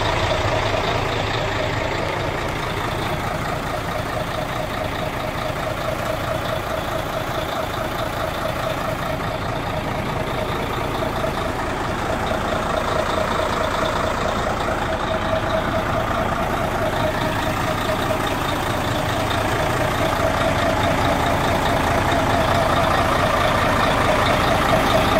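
Heavy truck's diesel engine idling steadily, a little louder near the end.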